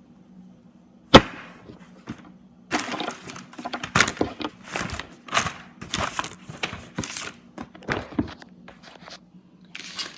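Plastic paper tray of a Brother HL-2320 laser printer being worked by hand: one sharp clack about a second in, then a run of irregular rattling and scraping.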